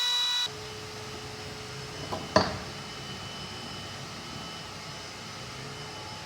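A high-pitched power tool whine that stops abruptly about half a second in. A quieter steady machine hum follows, with a sharp knock about two and a half seconds in.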